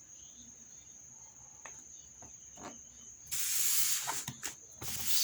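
Cardboard packaging being handled: a couple of light knocks, then a scraping rustle about three seconds in and a shorter one near the end, over a steady high-pitched whine.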